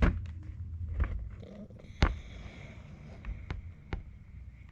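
Cardboard product box being handled, giving a few sharp knocks and taps, the loudest about two seconds in, over a low steady hum.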